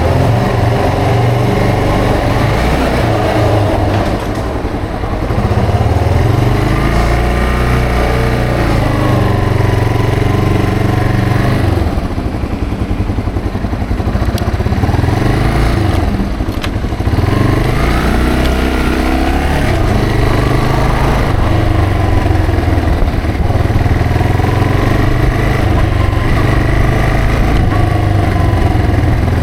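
Yamaha TW225's single-cylinder four-stroke engine running under way, its pitch rising and falling again and again as the bike accelerates and shifts gear, easing off briefly a few times.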